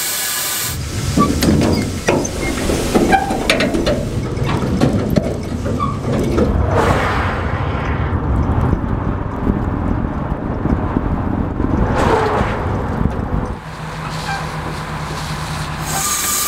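Semi truck running under way, a steady low engine and road rumble that drops to a quieter, steadier low hum about three-quarters of the way through.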